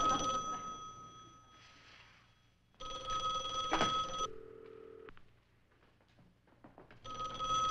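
Telephone bell ringing in a repeating ring-and-pause pattern: a ring fading out at the start, a ring of about a second and a half some three seconds in, and another starting near the end.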